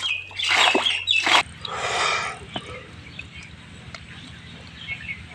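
Hands splashing and squelching in wet pond mud and shallow water, in a few bursts over the first two seconds, then quieter. Birds chirp in the background, louder near the start.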